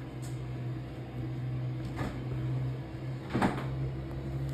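Plastic action figure and its small accessories being handled on a wooden table, giving three short knocks and clacks, the loudest about three and a half seconds in, over a steady low hum.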